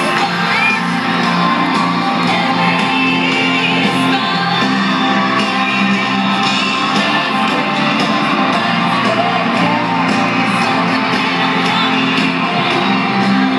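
Live stadium concert music heard from far up in the stands, with shrill screams and whoops from the crowd close by.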